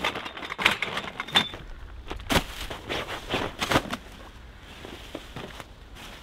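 Rustling and crackling of a canvas bell tent's bags being pulled apart, shaken out and set down on dry fallen leaves, with several sharp crackles in the first four seconds, then quieter handling.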